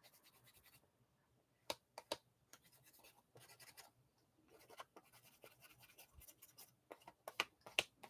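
Faint scraping of a palette knife being wiped clean of paste on a scrap of paper, with a few light clicks.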